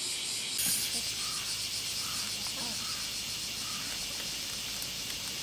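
Steady chorus of summer insects chirring: a high, even drone with a fast pulsing texture.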